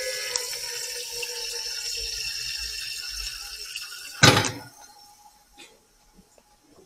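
Tap water running into a container, a steady hiss with a ringing tone that slowly fades. About four seconds in comes a single short, loud knock, after which it is nearly quiet.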